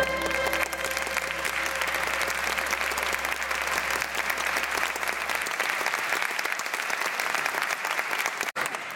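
Audience applauding steadily. The applause cuts off abruptly near the end.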